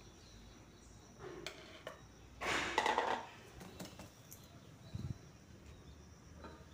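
Stainless steel kitchenware being handled: a bowl and plates clattering and scraping against each other, loudest in a rough scrape about two and a half seconds in, with a click and then a dull knock near five seconds.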